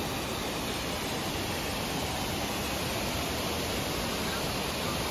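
Waterfall cascading down a rocky mountain stream bed: a steady, even rush of falling water.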